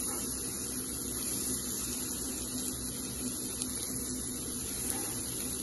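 Chopped onion sizzling gently in melted butter in a pressure cooker pan: a steady soft hiss, with a faint low hum underneath.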